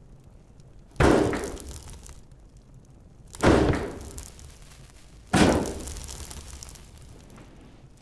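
Three heavy bangs about two seconds apart, each echoing and dying away over a second or so, with a fourth just starting at the end.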